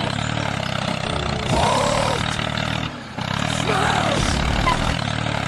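DIY mini tractor's motor running steadily while it pulls a plough, dipping briefly about three seconds in.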